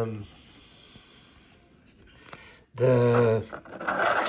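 A man's voice in short, drawn-out sounds at the very start and again about three seconds in, with quiet room tone and a faint click between.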